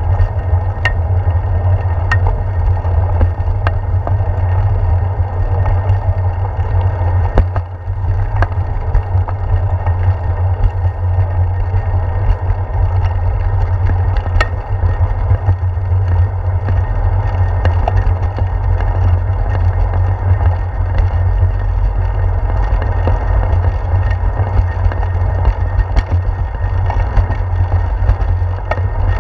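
Steady low wind rumble and rolling vibration picked up by a handlebar-mounted GoPro Hero 4 on a moving bicycle, with tyre noise on pavement and a few sharp ticks and knocks from bumps.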